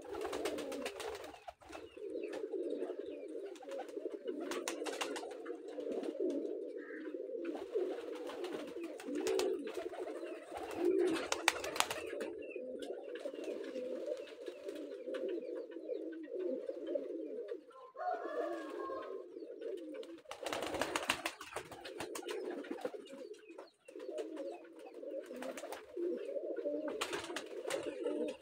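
A flock of domestic pigeons cooing continuously, many birds at once, with occasional sharp clicks among them.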